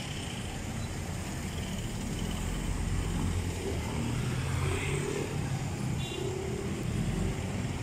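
Street traffic, with motorcycles and cars passing close by. The engine noise grows louder from about two seconds in and eases off near the end.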